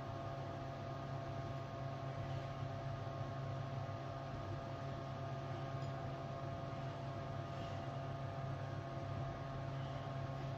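Steady electrical hum, strongest low down with a few fainter higher tones, unchanging throughout.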